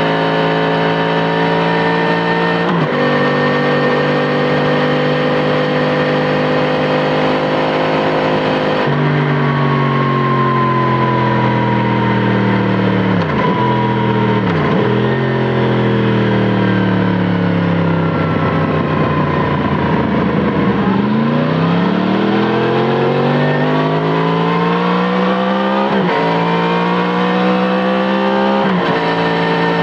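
Yamaha MT-10 SP's crossplane inline-four running through an Akrapovic titanium slip-on exhaust: holding a steady engine speed, then slowing with the pitch falling and two quick breaks around a third and half of the way in, then pulling away with a rising pitch broken by short drops near the end, as in gear changes.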